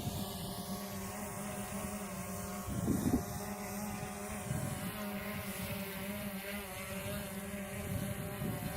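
Quadcopter drone's propellers and motors giving a steady, even-pitched buzz, with a brief gust of wind on the microphone about three seconds in.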